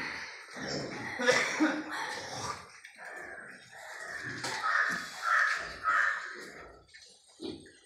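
Pen of piglets grunting as they move about, with a run of three harsh calls about half a second apart about two-thirds of the way through.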